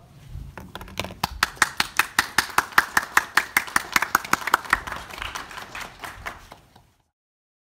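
A small audience clapping, distinct sharp claps at about five a second, dying down and then cutting off abruptly near the end.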